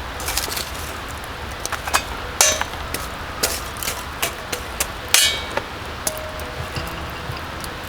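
Irregular sharp knocks and clinks of hard objects, about a dozen, the loudest two a third and two thirds of the way through, some with a short metallic ring, over a steady low background noise.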